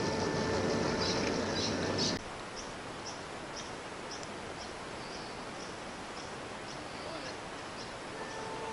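Battery-electric model tram on 5-inch gauge track, running with a steady electric-motor whine over wheel rumble. About two seconds in, the sound cuts to a quieter stretch of regular faint high ticks, two or three a second. The whine returns near the end.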